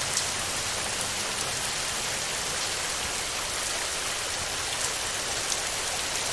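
Steady rain falling on a tin roof, an even hiss with scattered sharper drop ticks.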